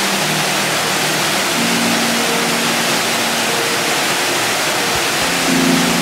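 Waterfall: a steady, loud rush of water falling, with soft background music of held notes that change every second or two underneath.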